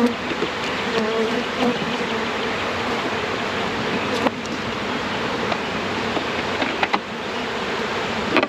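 A mass of honey bees buzzing steadily and loudly around the hive during a package installation, the bees somewhat agitated and defensive. A few sharp knocks come through, around the middle and near the end.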